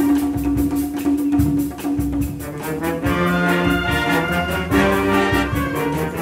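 Concert wind band playing, brass and woodwinds together sustaining full chords that change every second or so.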